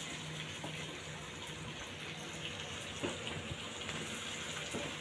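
Onions and a ground masala paste sizzling in oil in a nonstick frying pan as they are stirred with a spatula: a steady hiss with a few faint scrapes of the spatula.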